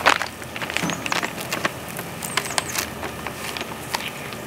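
A packet of ground flaxseed being handled and folded, with irregular crinkles and small taps.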